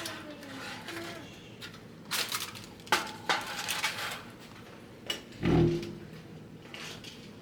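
Kitchen clatter of pans and dishes: a few sharp clinks, then one louder low thud about five and a half seconds in.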